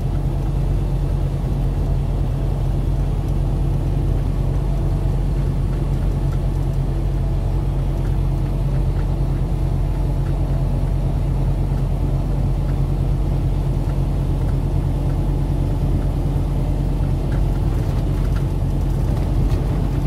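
Loaded semi truck's diesel engine and road noise droning steadily inside the cab while driving.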